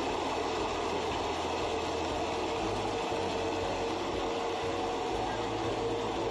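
Countertop electric blender running steadily, blending mango with ice into a smoothie.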